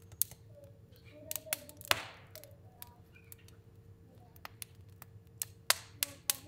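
Fire burning in a fireplace, crackling with irregular sharp pops, a dozen or so, the loudest about two seconds in with a short hiss after it. Faint squeaky whistles sound between the pops.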